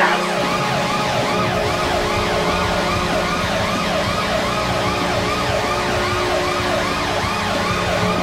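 Siren-like wail rising and falling rapidly, about three sweeps a second, over a steady low drone.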